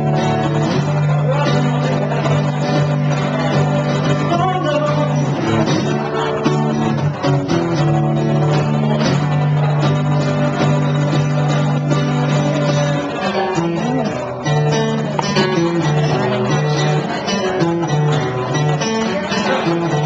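Acoustic guitar strummed steadily, with a man singing over it.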